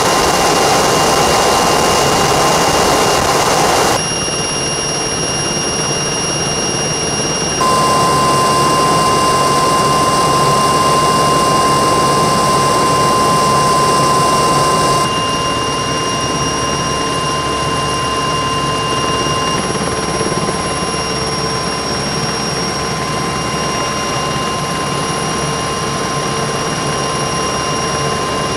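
Helicopter turbine engines running: a steady high whine over a rushing engine and rotor noise. Its level and pitch mix change abruptly a few times.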